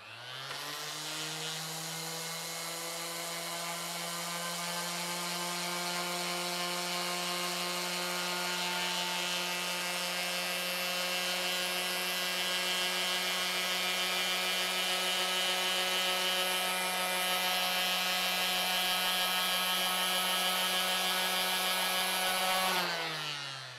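Electric random orbital sander starting up and running with a steady hum as it is drawn slowly, about an inch per second, across a wooden board. It winds down near the end.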